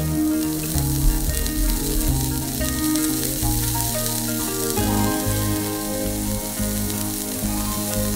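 Napa cabbage and carrot sizzling as they stir-fry in a hot pan, turned with wooden chopsticks. A steady frying hiss, with a soft background tune of changing notes underneath.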